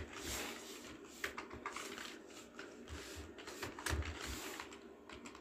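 Faint, irregular computer keyboard keystrokes, a few separate clicks a second, as an equation is typed.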